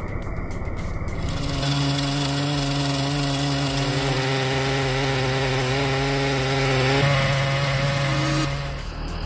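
Large chainsaw running at steady high revs while cutting through wood, its pitch shifting slightly about seven seconds in and dropping away near the end.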